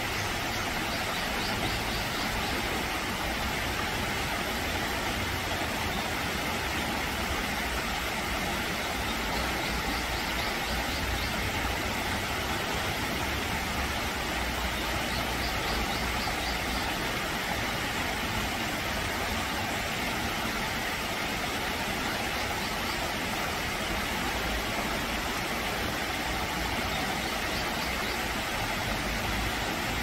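Shallow mountain stream rushing over rocks and small cascades: a steady, even splashing rush. Faint high chirps come through a few times.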